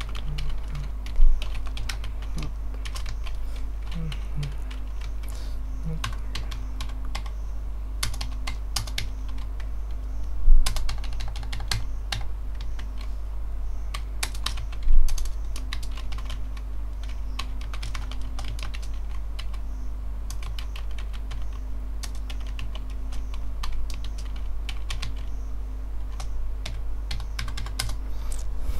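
Typing on a computer keyboard: irregular runs of key clicks with short pauses, over a steady electrical hum. Three short thumps, louder than the keys, stand out in the first half.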